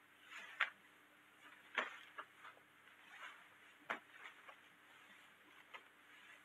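Quiet rustling of clothing with a few short sharp clicks and knocks, and a low soft thump about four seconds in: two people scuffling and one being pushed down onto a bed.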